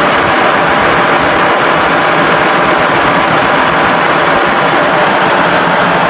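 Proton Wira's four-cylinder petrol engine idling loudly and unevenly, misfiring on one cylinder so that it runs on only three.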